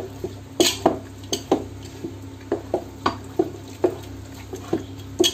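Dal ghotni (masher) pounding and stirring thick haleem in a metal pot, knocking against the pot about two to three times a second in an uneven rhythm, as the meat and grain are mashed together.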